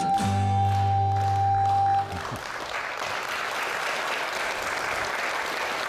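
Music ends on a long held chord about two seconds in, and audience applause follows.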